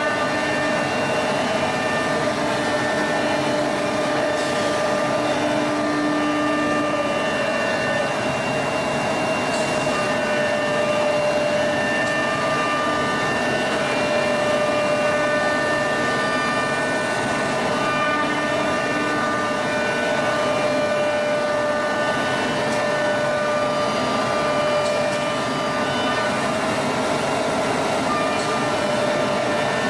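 A machine running steadily: an even mechanical noise with a constant whine of several fixed tones.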